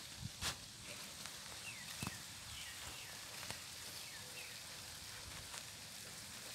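Faint outdoor ambience: small birds chirp in the background with short falling chirps, repeated several times, while a few soft clicks and rustles come from a Muscovy duck pecking and foraging in the grass.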